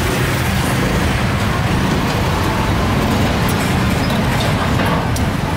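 Steady low rumble of nearby motor traffic and idling engines, with a few light clicks in the second half.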